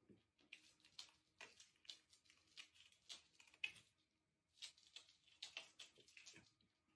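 Near silence broken by faint, irregular light clicks and taps, a couple or so each second.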